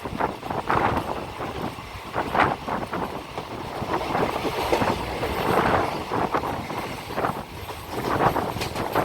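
Passenger express train running along the track, heard from aboard: a continuous rumble with irregular wheel knocks and clatter over the rails.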